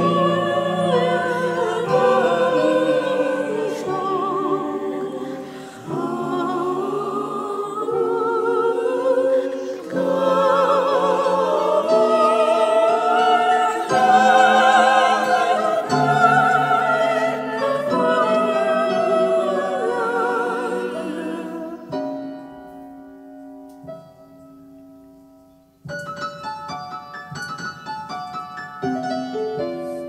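A mixed choir sings a slow Scottish Gaelic song with vibrato, accompanied by piano. About three quarters of the way through, the voices fade out and a held piano chord dies away. The piano then carries on alone with a run of quicker, higher notes.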